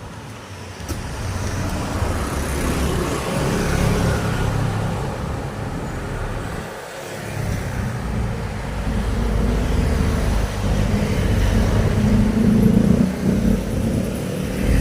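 Road traffic: motor vehicles passing one after another along a street, with a brief lull about seven seconds in and louder passing vehicles in the second half.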